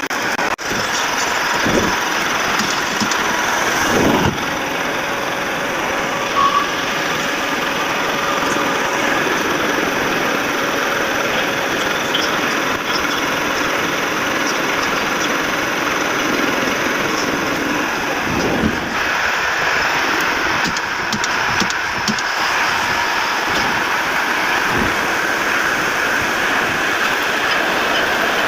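CNC lathe running as it machines a pin: a steady mechanical hum with a few faint steady tones. A few short knocks come through, about 2 and 4 seconds in and again after about 19 seconds.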